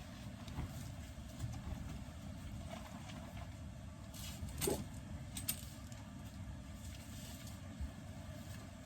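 Low, steady rumble of a vehicle, with a few light clicks and one louder knock about halfway through.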